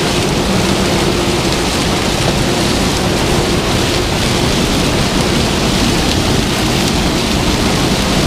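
Combine harvester running steadily while harvesting corn: a loud, even machinery din with a faint low hum underneath.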